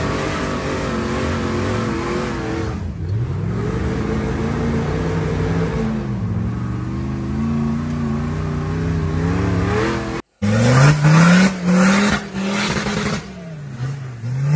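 Jeep rock crawler's engine revving hard under load while its tires spin on rock, the pitch dropping and climbing again several times. About ten seconds in it breaks off and another off-road vehicle's engine revs in a few short rising bursts.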